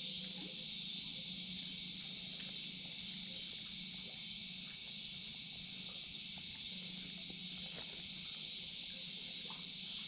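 Steady, high-pitched chorus of crickets and other insects, with a faint low hum underneath.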